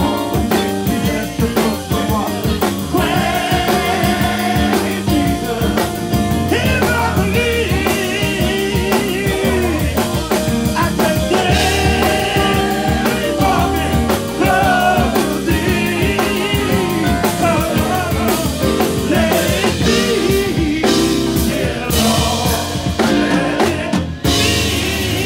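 Men's gospel choir singing, a lead vocalist out in front of the group's backing vocals, over a live band with drums.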